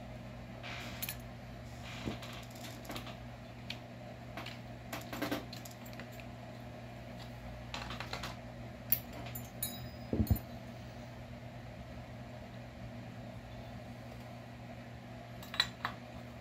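Scattered small metal clicks and clinks of hex wrenches and bolts as a chainsaw is taken apart on a workbench, with a louder knock about ten seconds in, over a steady low hum.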